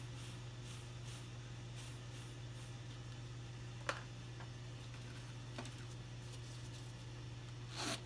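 Steady low hum of room tone with a few faint ticks and a single sharp click about halfway, then a brief rustling scrape near the end as a wet painted canvas is taken by its edge and shifted on a wire drying rack.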